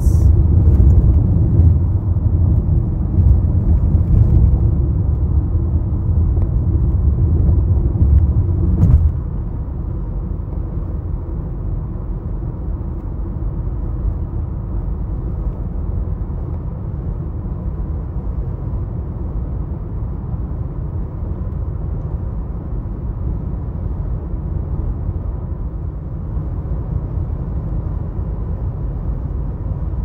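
Car driving at highway speed, heard from inside the cabin: a steady low rumble of tyre and road noise. The rumble drops to a noticeably quieter level after a short click about nine seconds in.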